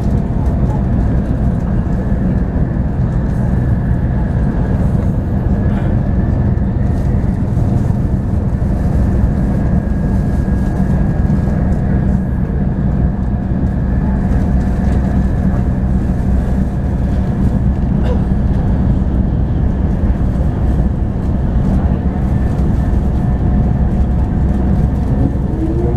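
Cabin noise of a Shinkansen bullet train running along the line: a steady low rumble with a faint steady whine. Near the end, a short rising run of notes begins, the onboard chime ahead of an announcement.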